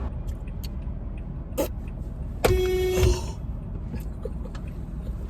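Car horn honked once, a steady blast of about half a second, heard from inside the car over steady road noise.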